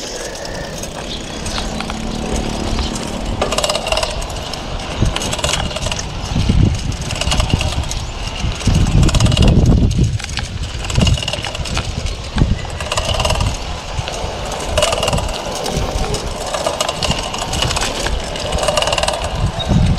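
Mountain bike being ridden over rough dirt and then a concrete path: tyres rolling and the bike rattling with many small clicks, with heavy low rumbling surges a few times near the middle.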